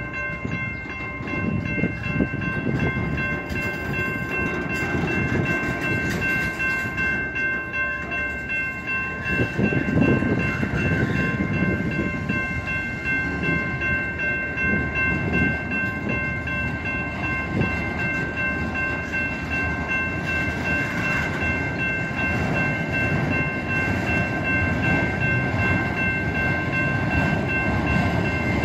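Train rolling past with a continuous, uneven rumble of its cars. Several steady high-pitched ringing tones hold unbroken above it throughout.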